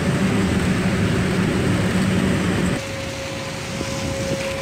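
Steady engine and road rumble heard from inside a moving bus. About three seconds in it cuts abruptly to quieter city traffic noise on a wet street, with a faint steady hum.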